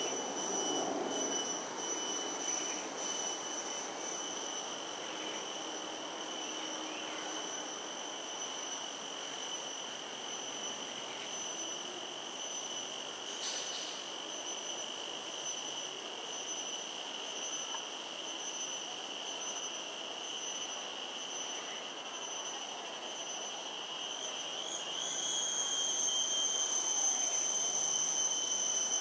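A steady, high-pitched whine with overtones, wavering briefly in pitch about 25 seconds in and then louder.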